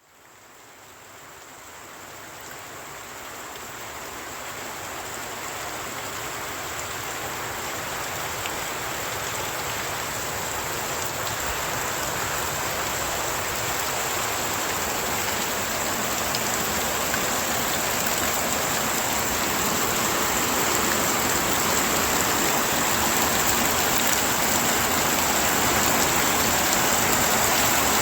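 Heavy rain pouring down in a dense, steady hiss, fading in from quiet to full level over the first twenty seconds or so.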